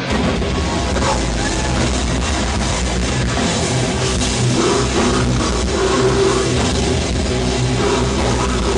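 Death metal band playing live: heavily distorted guitars and bass over fast, dense drumming.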